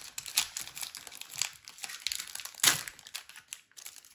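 Hockey card pack wrapper being torn open and crinkled in the hands: a steady run of crackling rustles with a sharper, louder crackle a little past halfway.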